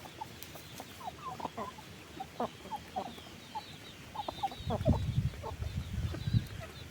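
A flock of chickens clucking, many short calls overlapping, with faint high chirps above them. From about four and a half seconds in, a louder low rumble joins.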